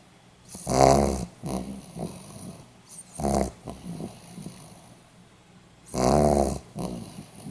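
Pomeranian dog snoring in its sleep: three loud snores about two and a half seconds apart, with softer breaths between them.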